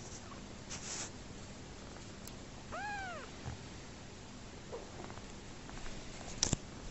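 A young tabby kitten gives one short meow that rises and then falls in pitch, about three seconds in. Near the end comes a single sharp click, the loudest sound.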